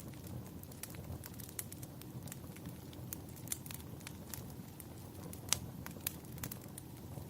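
Wood fire crackling: irregular sharp pops and snaps over a steady low rumble of burning. The loudest pop comes about five and a half seconds in.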